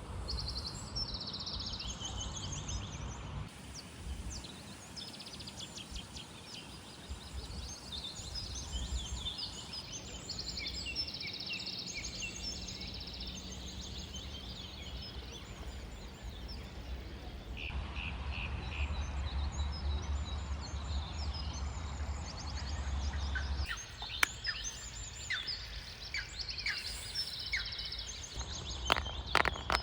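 Small birds chirping and singing over a low rumble of wind, with a few sharp clicks near the end.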